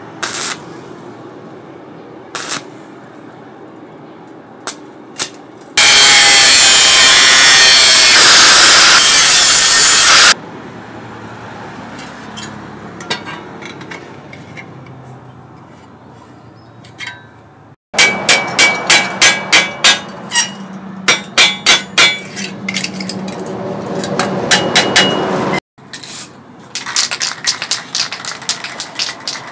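Hand hacksaw cutting a steel bar, with a long run of loud strokes at about two a second. Before it, a loud steady rushing noise for about four seconds, and scattered metallic taps and clicks around it.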